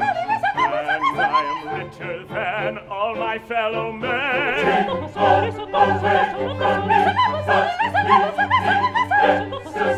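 Operatic singing with wide vibrato over sustained instrumental accompaniment; a high held, wavering note comes in about four seconds in.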